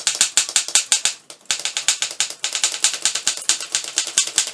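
Underwood desk typewriter being typed on quickly: a rapid run of keystrokes, the type bars striking the platen about eight times a second, with a short pause about a second in.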